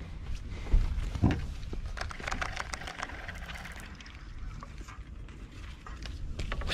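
Handling noise on a bass boat deck: two sharp knocks about a second in, then a run of light clicks and rattles, over a steady low rumble.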